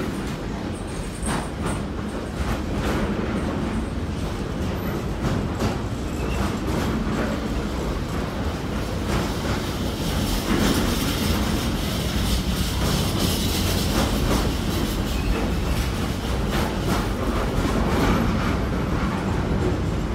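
Container freight train passing close by, its wagons rumbling steadily with repeated clicks and clatter from the wheels. It grows a little louder and hissier about halfway through.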